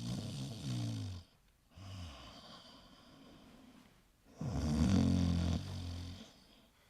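A man snoring in long, drawn-out snores: one ends about a second in, and another runs from about four and a half to six seconds, with quieter breathing between.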